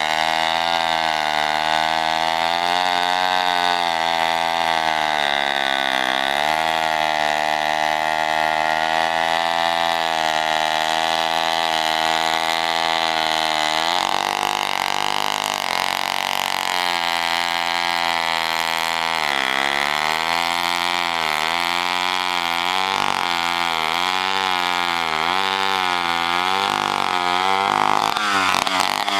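1960 David Bradley 77 cc gear-driven two-stroke chainsaw running hard while cutting wood, its engine speed sagging and recovering again and again under the load of the cut, most often in the second half.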